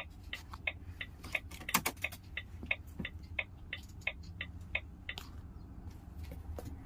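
Steady rapid ticking, about three clicks a second, from a Volvo truck's indicator flasher in the cab, over the low hum of the idling engine.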